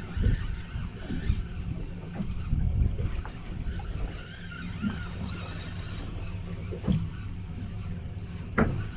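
Low rumble of wind and water around a small fishing boat, with a few short knocks, the sharpest near the end.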